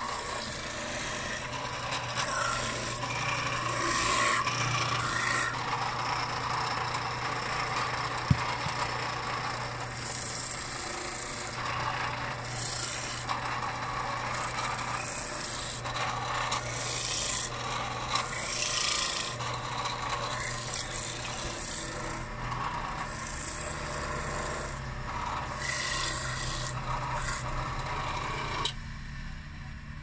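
Homemade orange juicer driven by a washing-machine motor, running with a steady low hum while orange halves pressed onto its spinning reamer grind and rasp in repeated surges. There is one sharp click about eight seconds in, and the rasping stops near the end.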